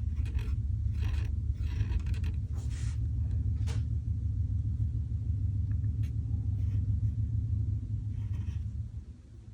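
A steady low rumble that fades out about nine seconds in, with a few short scratchy strokes in the first four seconds.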